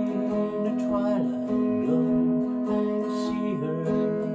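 Clean electric guitar, a Telecaster-style solid-body, playing a country song: sustained notes and chords ring and change roughly once a second, with a few short bends in pitch.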